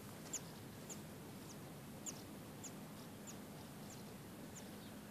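Faint bird calls: a short, high chirp that slides downward, repeated steadily about every half second over a quiet background hiss.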